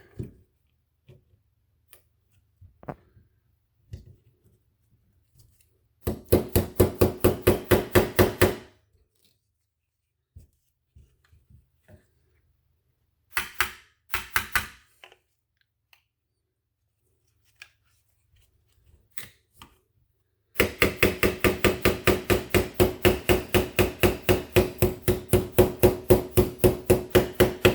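Small hammer tapping the trigger pin into a Polymer 80 pistol frame: quick, even taps at about five or six a second, each with a short ring. The taps come in three bouts: a couple of seconds' worth about six seconds in, a brief few around fourteen seconds, and a long run through the last seven seconds.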